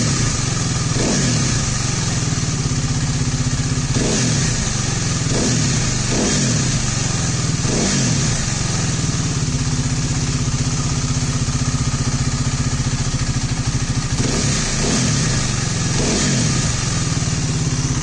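KTM Duke 390's single-cylinder engine idling with short throttle blips at uneven intervals, run with the radiator cap off to purge air bubbles from the freshly refilled cooling system.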